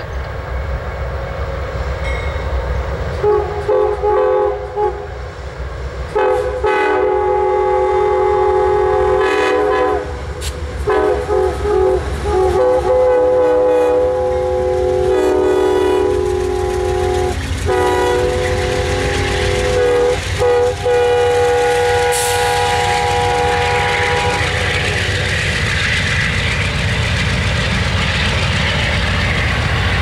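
Amtrak GE P42DC diesel locomotive's air horn, blown as a long, drawn-out horn show: many blasts, some short and some long, starting a few seconds in and ending about 25 seconds in. The train passes at low speed, and near the end the rumble and wheel clatter of the passenger cars rolling over the rails takes over.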